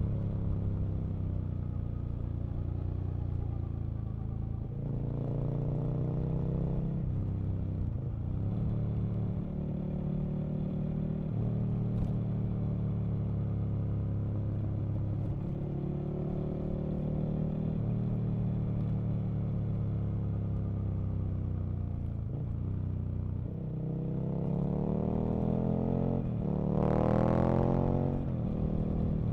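Aprilia RSV Mille's V-twin engine pulling along a road, its pitch rising as it accelerates about five seconds in. Near the end it revs up harder through a long climb, loudest just before it drops back.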